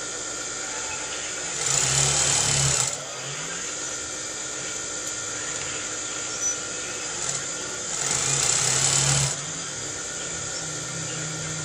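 Industrial sewing machine stitching in two short runs of about a second each, over a steady background hum.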